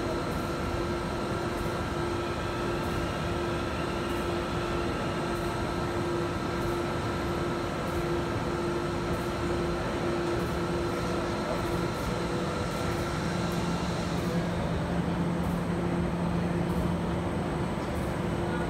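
Domino K600i UV inkjet label press running steadily, a constant machine hum and whir with held tones as the label web moves through. About two-thirds of the way through, the higher tone drops out and a lower hum takes over.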